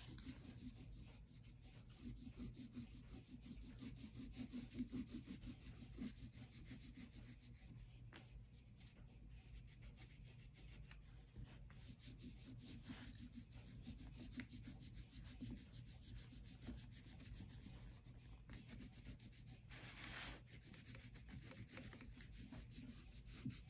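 Faint scratching of oil pastels rubbed on paper in quick, continuous strokes, over a low steady hum.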